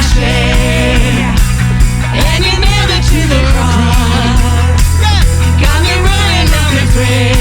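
Rock-style band music with a singing voice over a steady beat.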